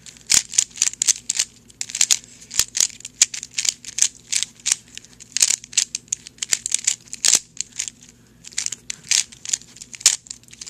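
3x3 Rubik's cube being turned rapidly by hand while it is scrambled for the next solve: a fast run of sharp plastic clicks and clacks, several a second, with a brief pause about eight seconds in.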